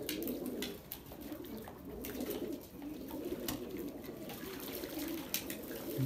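Domestic pigeons cooing, a low warbling murmur from many birds at once, with a few brief sharp ticks scattered through it.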